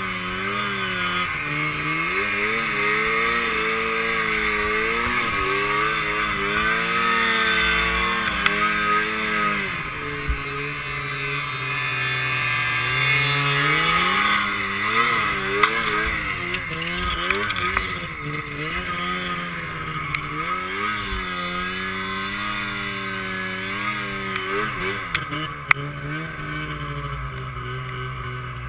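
Arctic Cat snowmobile engines revving up and down in deep snow, with a few short sharp bangs. One of the bangs is a snowmobile's primary clutch exploding at full revs.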